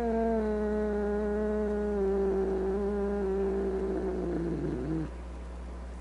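A cat's long, drawn-out yowl, slowly falling in pitch, that wavers lower and breaks off about five seconds in.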